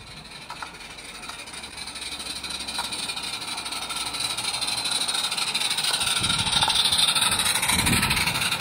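Radio-controlled 16mm-scale live-steam model of the Welshpool & Llanfair locomotive Countess hauling a heavy coal train, its steam hiss growing louder as it approaches and loudest about seven seconds in. Near the end the wagons rumble past on the track.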